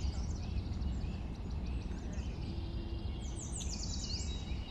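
Small birds chirping and twittering over a steady low rumble, with a quick run of high chirps a little after three seconds in.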